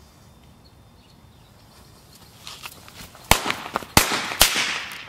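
Firecrackers set in a block of canned meat going off: a few small pops, then three sharp bangs about half a second apart that blow the meat apart.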